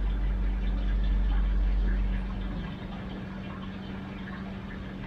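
Washtech UL Premium undercounter commercial dishwasher running its wash cycle: a steady motor hum over a hiss of water, with the deep low rumble dropping away about two and a half seconds in.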